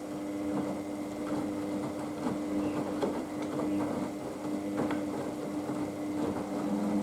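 Haier HWD 120 washer-dryer in the main wash of its 15-minute express programme: a steady motor hum as the drum turns, with scattered soft knocks from the tumbling wet laundry.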